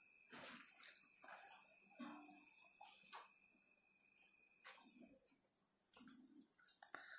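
A cricket trilling steadily in the background, a high pulsing tone at about nine pulses a second.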